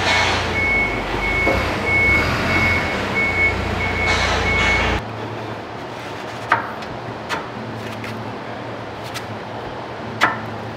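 A high electronic beep repeating about twice a second over a low engine-like rumble, cut off about halfway through. Then a quieter garage with a few sharp clicks and taps of metal parts being handled at the bumper.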